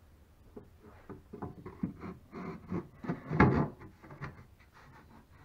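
A plywood locker cover being handled and shifted against the boat's wooden framing: a run of irregular wooden knocks and scrapes, loudest about three and a half seconds in.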